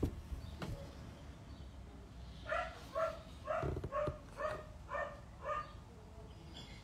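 A dog barking: a run of about seven short, high barks, roughly two a second, starting about two and a half seconds in.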